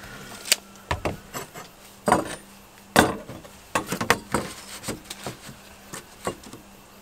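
Irregular light knocks, taps and scrapes of hand tools on a plywood board: a tape measure and a metal carpenter's square are handled and laid on the board while a line is marked in pencil. The louder knocks come in the first three seconds, with a run of lighter ticks after that.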